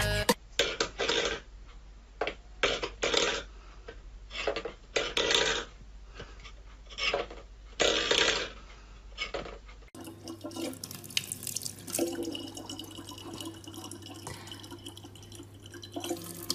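About a dozen short, irregular noises in the first half, then a kitchen tap running a thin stream of water into a plastic bottle, with a steady low hum behind it.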